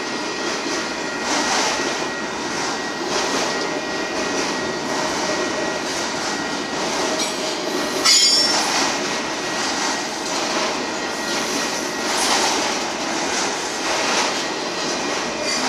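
Union Pacific manifest freight train's autorack cars rolling steadily past, a continuous rumble and rattle of wheels on rail. A brief sharp wheel squeal cuts through about halfway in.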